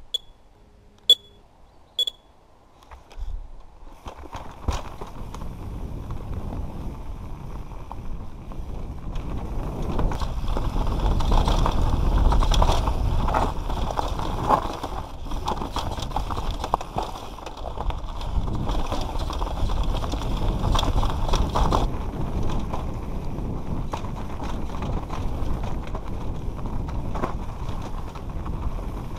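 Three short high beeps about a second apart counting down, then a mountain bike setting off downhill on a rocky dirt trail: tyres on loose dirt and stones, the bike rattling over rough ground and wind on the helmet camera, growing louder over the first ten seconds or so as speed builds.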